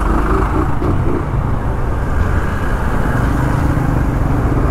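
An AKT motorcycle being ridden through slow city traffic: steady engine and road noise, heavy in low rumble, with no sudden events.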